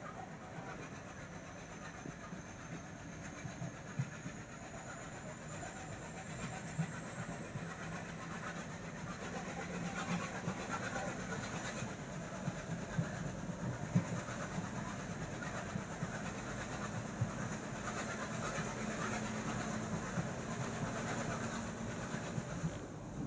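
Diesel-hauled passenger train running on the rails, heard from on board: a steady low rumble with scattered knocks of wheels over rail joints. A thin high whine climbs slowly in pitch as the sound grows gradually louder.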